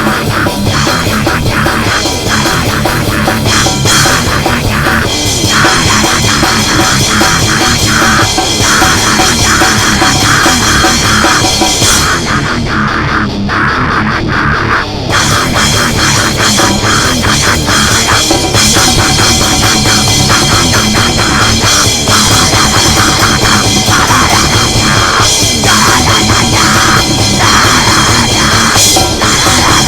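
Loud, dense, aggressive heavy rock or metal recording with a drum kit, its very top end thinning out for a few seconds about twelve seconds in.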